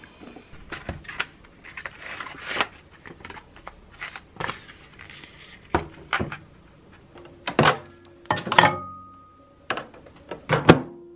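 Irregular clicks and knocks of a black plastic ready-meal tray being handled on a counter, then a microwave door closing with a clunk near the end.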